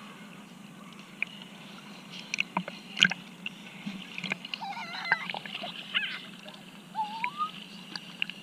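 Sea water sloshing and splashing around a swimmer, with scattered small sharp splashes and a few faint high, wavering cries in the second half.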